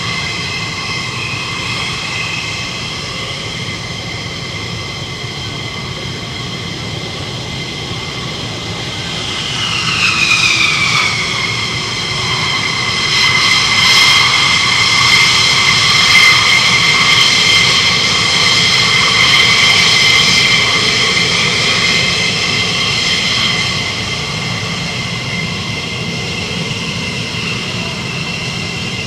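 F-16 Fighting Falcon jet engines taxiing, with a steady high turbine whine over a low rumble. About ten seconds in, a louder whine sweeps down in pitch. It stays louder for roughly ten seconds before easing back.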